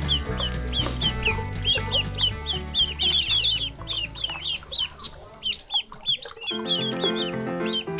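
A group of ducklings peeping rapidly and continuously, many short high calls overlapping. Background music plays underneath, dropping out for a couple of seconds past the middle and then coming back.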